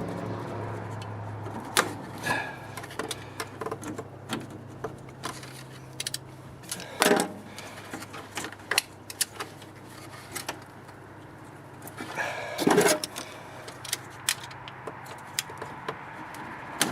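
Scattered clicks and rattles of hand work as plastic push-through ties are pulled tight to hold a power steering cooler against the radiator, with two louder clatters about seven and thirteen seconds in.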